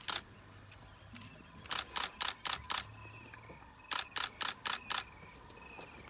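Camera shutter firing in burst mode: two runs of about five rapid clicks each, roughly four a second, the first about two seconds in and the second about four seconds in.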